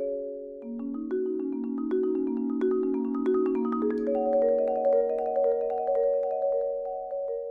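Solo marimba played with mallets: many overlapping struck notes in the instrument's middle and lower range, growing louder after about two seconds and easing off near the end.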